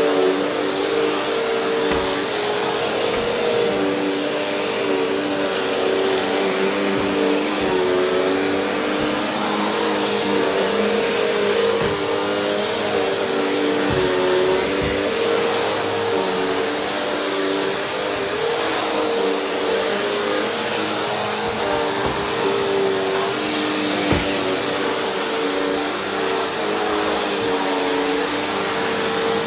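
Vacuum cleaner running steadily, its motor drone holding a steady pitch that shifts slightly now and then, with a few short knocks as it is pushed across the floor.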